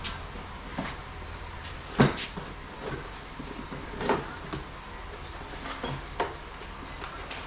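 Knocks and clunks of parts and a cardboard parts box being handled on a workbench cart: about seven separate knocks, the loudest about two seconds in, with the box being opened near the end.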